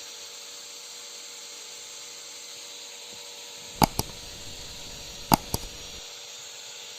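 Steady background hiss broken by two pairs of sharp clicks, the pairs about a second and a half apart.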